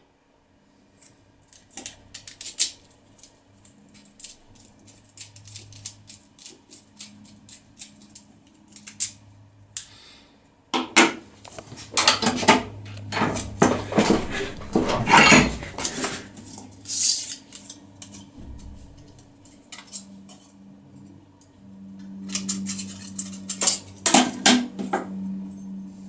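Small metal parts clicking and clinking as a lock cylinder and its keys are handled, with a louder stretch of clattering and scraping about halfway through. Near the end, crinkly clicks as aluminium foil is folded.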